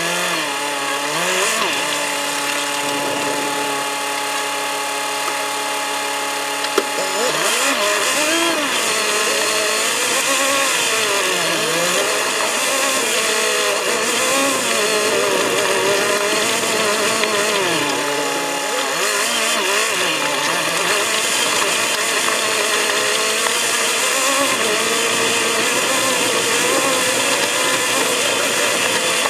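Sped-up sound of an off-road vehicle's engine heard from inside the cab, driving a rough track. The speed-up makes it high and buzzy. It runs steadily at first, then after a sharp click about seven seconds in its pitch rises and falls every second or two as the revs change over the bumps.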